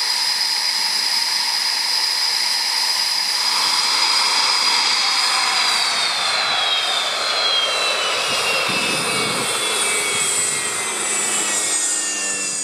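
Eurofighter Typhoon's twin EJ200 turbofan engines whining steadily on the ground, then, about five seconds in, the high whine slides steadily down in pitch as the engines wind down.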